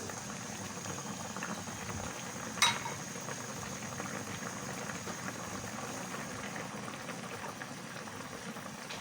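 A pot of chicken-feet and tamarind broth boiling steadily, a constant bubbling crackle. One short sharp click sounds about two and a half seconds in.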